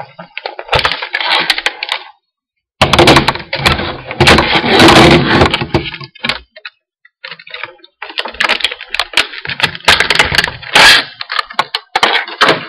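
Headphone box packaging being handled and pulled apart: rustling with many sharp clicks, in loud spells broken by a short pause about two seconds in and a longer pause around six to eight seconds.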